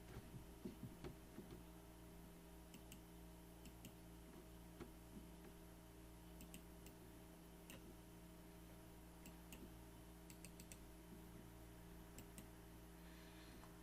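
Faint, scattered computer mouse clicks over a steady low hum, more of them in the first two seconds.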